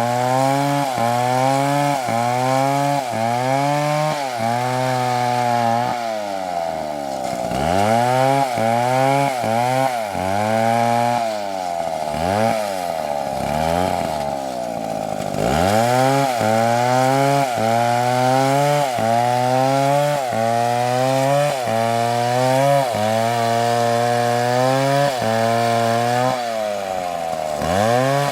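Chainsaw cutting wood under load. The engine's pitch wavers up and down about once a second. Around 7 s in, between about 12 and 15 s, and near the end, the revs fall away further and then climb back.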